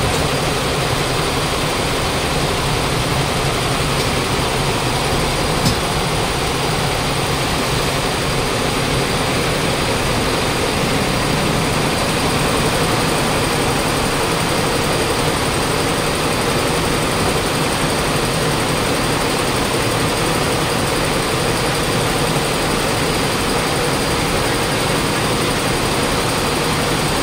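Steady, loud din of textile workshop machinery running without letup, with one sharp click about six seconds in.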